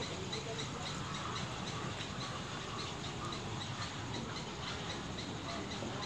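Birds calling: a short high chirp repeating evenly, about three times a second, with other scattered calls beneath it.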